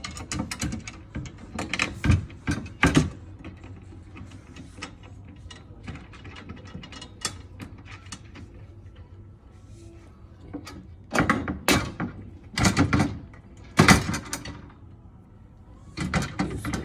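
Intermittent knocks, clicks and clatter of bed-frame hardware being handled and fitted while the gas-lift arms are attached, with a few louder rattling bursts about eleven to fourteen seconds in.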